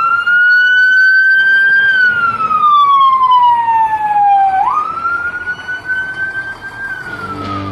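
Fire engine siren wailing: it winds up fast to a high pitch, climbs a little more, then slides slowly down, and this rise-and-fall happens twice.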